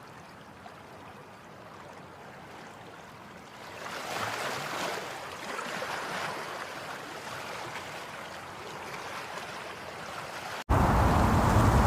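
Rushing floodwater: a steady wash of water noise that swells about four seconds in. Near the end it cuts suddenly to a much louder, rougher noise.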